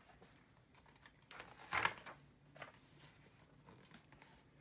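Pages of a hardcover picture book being turned: a few short paper rustles between about one and three seconds in, the loudest near two seconds in.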